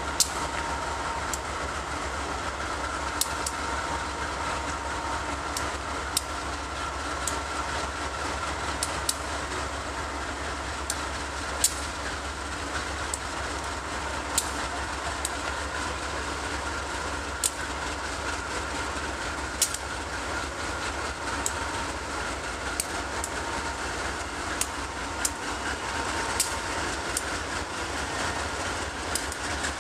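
Providence & Worcester GE B39-8E diesel locomotives rolling slowly past with a freight: a steady drone, with sharp clicks of the wheels over rail joints every second or two.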